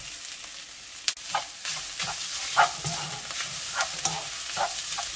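Seaweed stems stir-fried in oil in a stainless-steel wok, sizzling steadily on low heat now that their water has cooked off, while a spatula scrapes and knocks against the pan about twice a second, with a sharp click about a second in.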